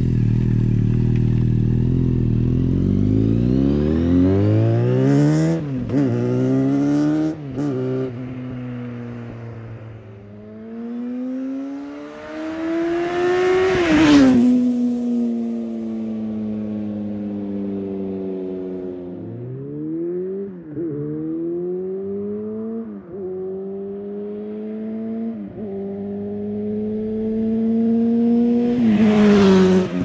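A 2007 Yamaha FZ6 Fazer S2's 600 cc inline-four running through a Scorpion Factory Oval slip-on exhaust with the baffles (dB killers) removed. It revs up hard from near the camera, climbing in pitch with sudden breaks at the gear changes, and fades off. It then passes by fast and loud about fourteen seconds in, the pitch dropping as it goes. More revving runs with gear changes follow, and another loud pass comes at the very end.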